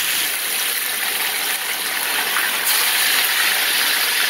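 Whole fish frying in hot oil in a pan, a steady sizzle.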